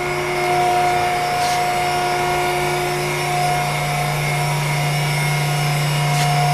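Heller 10-foot power shear running idle: its motor drive hums steadily, with several steady whining tones above the hum.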